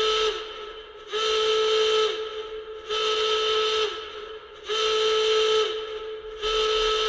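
Emergency alert alarm tone: a hissy, horn-like blast about a second long, repeated about every two seconds, each blast dipping in pitch as it cuts off.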